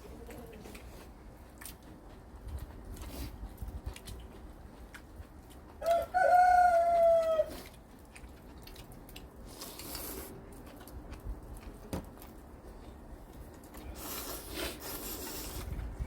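A rooster crows once, about six seconds in: a single loud pitched call lasting about a second and a half, with a dip in pitch at the end. Faint clinks of dishes and cutlery sound around it.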